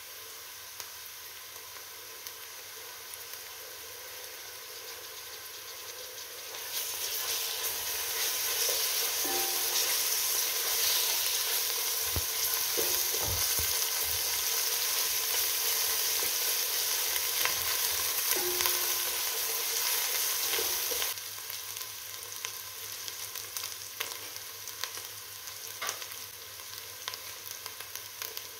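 Sliced onions sizzling in hot oil in an aluminium pot, stirred with a wooden spoon. About seven seconds in the sizzle turns much louder and hissier, with a few low knocks of the spoon against the pot, and about twenty-one seconds in it drops back to quieter frying with scattered crackles.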